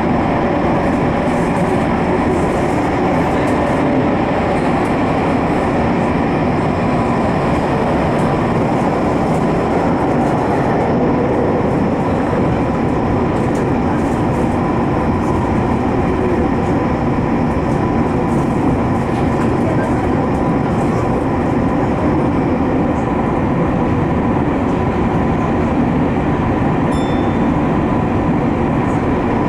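Tokyu 5050 series 4000-subseries electric train running steadily at speed through the subway tunnel, heard from inside the lead car. A dense rumble of wheels on rail carries a steady hum and whine from the motors.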